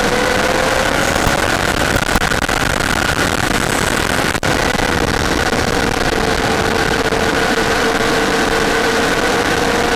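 RC model plane's motor heard from the onboard camera in flight: a steady whine over loud rushing air noise, the pitch rising slightly in the first couple of seconds. A brief click about four and a half seconds in.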